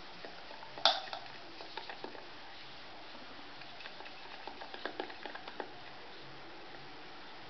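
Hand beating thick gram-flour (besan) pakora batter in a steel bowl, working in a spoonful of hot oil: soft, uneven wet pats and squelches, with one sharper knock about a second in.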